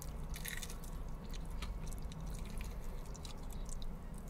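A person chewing and biting fried chicken close to the microphone: a stream of small, irregular mouth clicks over a steady low hum.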